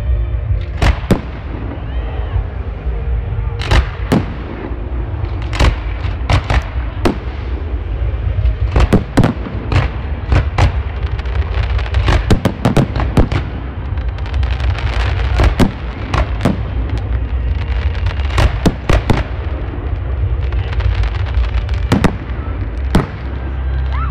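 Aerial firework shells bursting in an irregular string of sharp bangs, some coming in rapid clusters, over a steady low rumble.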